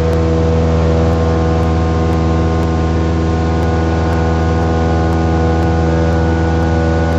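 Light aircraft's piston engine and propeller heard from inside the cockpit in level flight: a steady drone that holds one pitch throughout.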